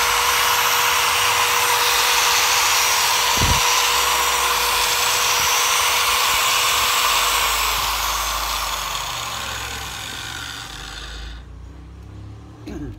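Ryobi 100 mm angle grinder (100 V, 600 W) running free at full speed with a steady whine. It is switched off about seven seconds in, and the whine falls in pitch as it winds down over several seconds.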